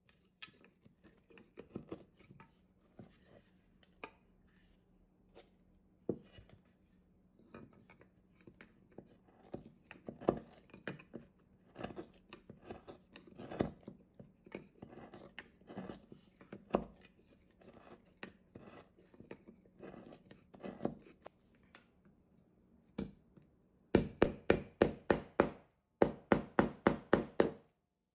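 A carving gouge cutting into hard wild cherry wood: scattered short scrapes and light knocks as shavings are pared off, then, near the end, two quick runs of sharp, loud taps on the tool.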